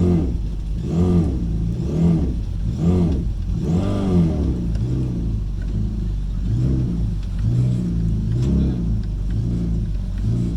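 Jet boat engine revved in short blips about once a second, each rising and falling in pitch, to blow water out of the jet pump on the trailer. After about five seconds it settles into lower, uneven running.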